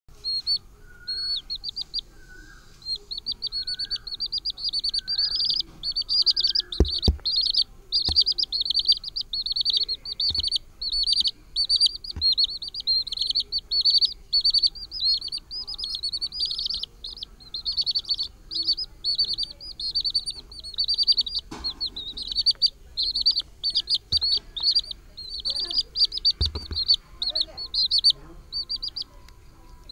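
Small chicks peeping: a dense, continuous chorus of rapid, high-pitched cheeps from several birds at once. There are a few softer, lower calls in the first few seconds and an occasional faint thud.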